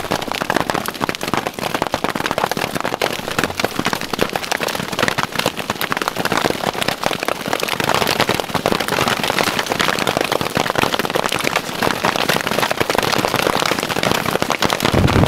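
Hailstones pelting a tarp shelter and the surrounding ground in a dense, rapid, continuous clatter of sharp impacts during a heavy hailstorm.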